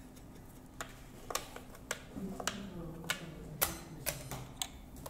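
Plastic Othello discs clicking against each other and the board as one is placed and a row is flipped over by hand: a series of sharp, separate clicks about half a second apart.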